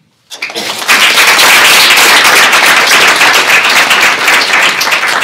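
Audience applauding, many hands clapping together, building up quickly within the first second and holding steady.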